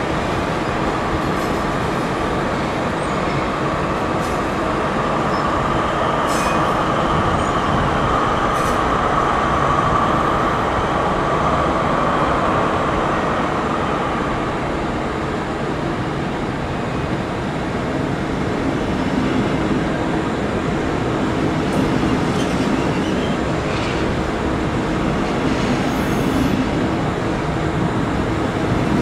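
Train running alongside a station platform: a steady rumble with a higher hum that swells and fades in the first half.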